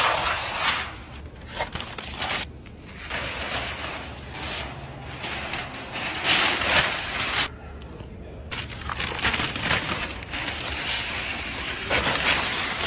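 Wrapping being torn and peeled off a car's bodywork: crinkling and ripping in irregular bursts, with a short lull about eight seconds in.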